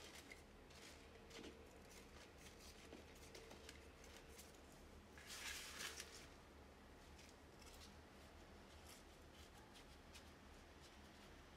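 Faint scrapes and rustles of chunky potting mix being scooped with a small scoop and tipped into a plant pot, with one louder grainy pour of soil about halfway through.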